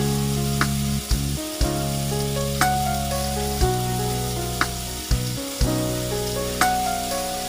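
Background music with a deep, steady bass line and a sharp beat about once a second, over the sizzle of food frying in a pot.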